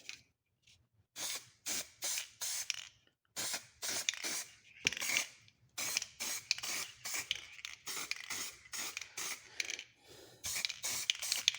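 Aerosol copper grease spraying in a long series of short hissing spurts onto the backs of disc brake pads, an anti-squeal coating.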